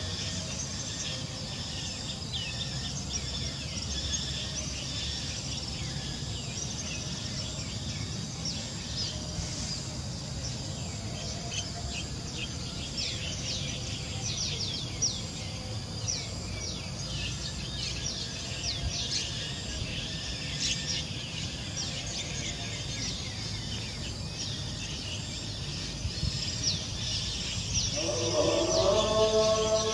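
Forest ambience: many small birds chirping in quick, repeated notes over a steady high insect hum. Near the end a voice starts.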